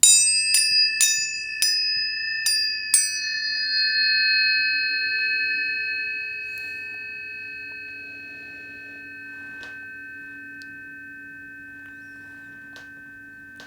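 Planetary tuning forks struck about six times in quick succession, then several pure tones ringing together and slowly fading.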